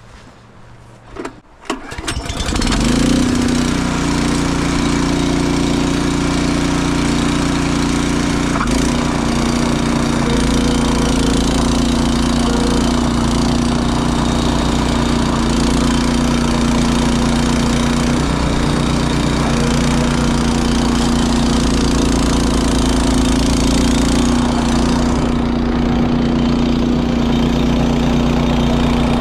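Honda snowblower engine starting: two short sounds, then it catches about two seconds in and settles into a steady run.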